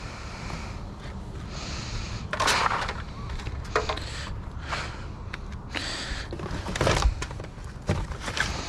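Rummaging through a pile of discarded items: irregular rustling and handling noise with scattered clicks and knocks, over a steady low rumble.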